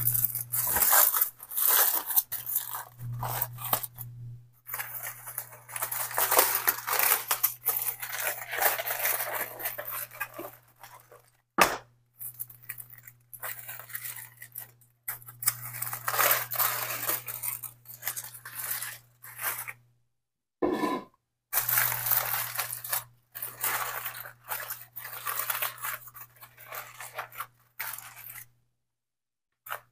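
Aluminium foil crinkling and tearing as it is peeled open by hand from around a cooked pork butt, in irregular spells broken by short pauses.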